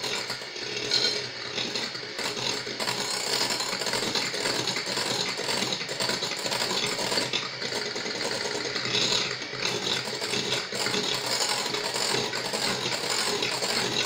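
Electric hand mixer running steadily, its wire beaters whipping stiffly beaten egg whites in a bowl as egg yolks are mixed in one at a time.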